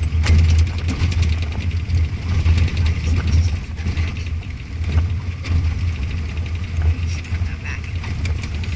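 Vehicle driving slowly along a rough dirt road: a steady low engine and road rumble, with many small rattles and clicks as it rolls over the uneven surface.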